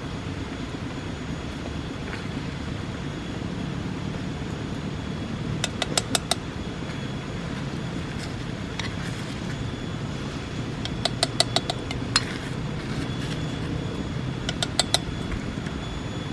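Steady low rumbling noise, with three short runs of quick, sharp taps or knocks, four to six in quick succession each time.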